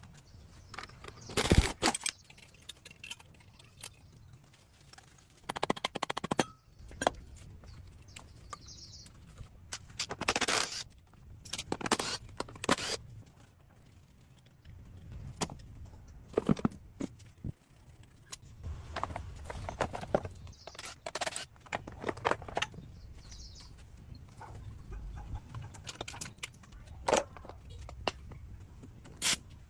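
Irregular metal clinks, knocks and short scrapes from hand tools and motorbike parts being handled during a teardown, with pauses between them.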